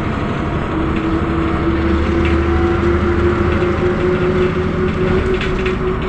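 Mercedes-Benz O405 city bus under way, heard from inside: a steady engine and drivetrain drone with a whine that rises slightly in pitch, and light rattles from the body. The low rumble eases a little about five seconds in.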